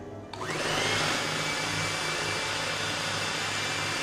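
Electric mixer starting up about half a second in with a rising whine, then running steadily as it beats cake batter.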